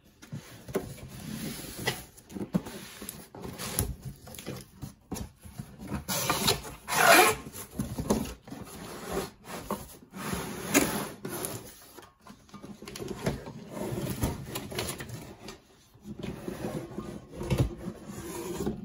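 Cardboard shipping carton being opened and handled: irregular rustling, scraping and knocks of cardboard as a 14-inch cast iron wok is slid out of it. The loudest long scrape comes about seven seconds in.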